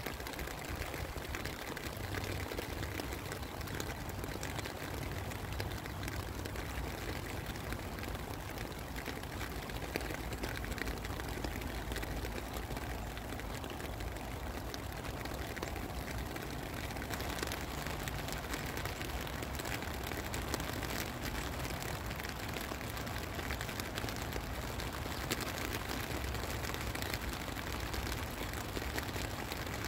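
Steady rain falling, with many small drops ticking close by and a low rumble underneath.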